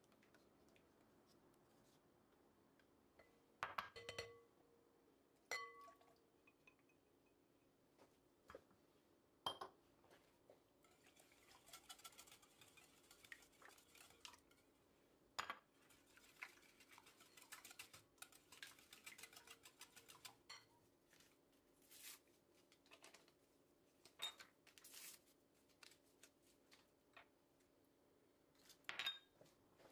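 Kitchen utensils knocking and clinking against a bowl, faint: a handful of separate knocks, and through the middle a run of quick, light taps.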